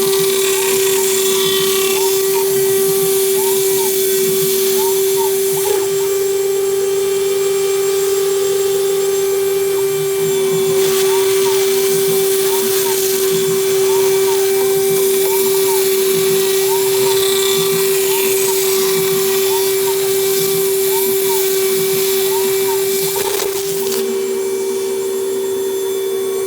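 CNC router spindle turning at 24,000 RPM, a steady high whine, as a 1/4 in Onsrud 63-620 end mill cuts polycarbonate sheet at a 60 inch-per-minute feed.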